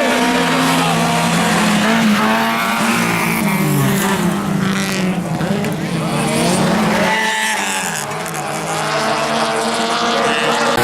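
Toyota Corolla offroad racing car's engine at racing revs, rising and falling through gear changes. The revs drop briefly, as if off the throttle, about seven seconds in, then climb again.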